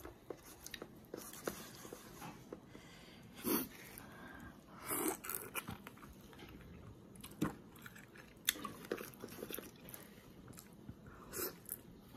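Biting into and chewing marian plums (plum mango) close to the microphone: soft mouth clicks throughout, with a few louder bites spread through.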